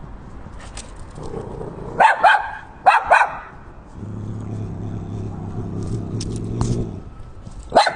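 Dog barking: two loud barks about two and three seconds in, and another run of barks starting near the end. Between them a low steady hum lasts about three seconds.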